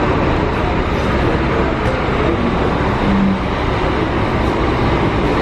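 Bus terminal platform ambience: diesel bus engines running with a steady, even din, mixed with the voices of people around.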